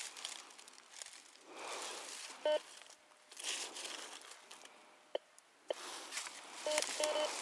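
Dry leaf litter crunching and rustling as a Garrett metal detector's search coil is swept through it, with the detector giving short beeping tones that signal metal under the coil: one beep about a third of the way in, then several in quick succession near the end.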